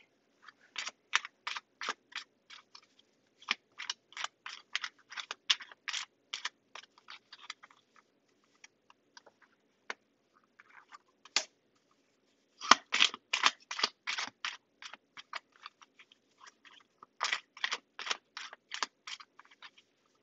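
Tarot deck being shuffled by hand: runs of crisp card flicks, about four a second, in several bursts with short pauses between them.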